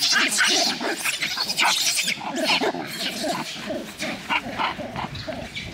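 Macaques shrieking in a fight, one pinning and biting another: a rapid string of short, shrill calls, densest in the first two seconds, then thinning out and growing quieter.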